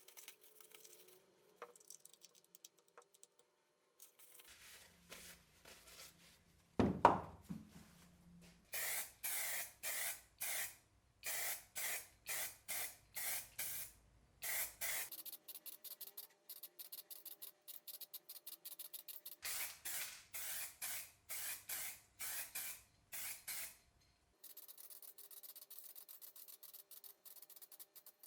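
Hissing spray bursts in quick runs, about one and a half a second, typical of an aerosol can spraying paint onto a part, with a steadier hiss near the end. A single loud knock with a brief ring comes about seven seconds in.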